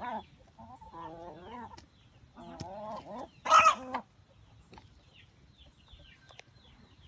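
Chickens clucking in wavering calls, with one loud harsh squawk about halfway through, followed by faint high chirps.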